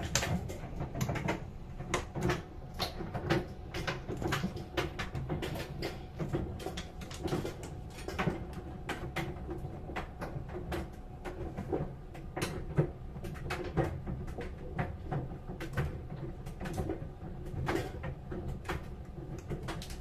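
Steady low hum of a running laundry machine, with many irregular light clicks and knocks, several a second.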